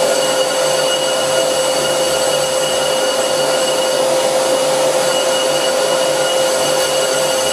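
Lathe facing a cast iron brake disc with a carbide insert, under the steady airflow noise of a dust-collection vacuum hose at the cut. A steady ringing tone runs through it: chatter, the sign that the cut is too heavy.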